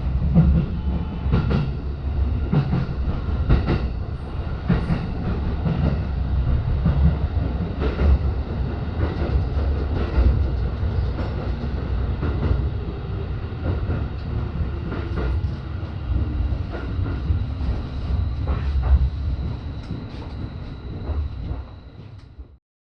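JR East Joban Line commuter train running, heard from inside the front car: a steady low rumble with scattered wheel clicks over the rails. The sound drops away near the end and then cuts off abruptly.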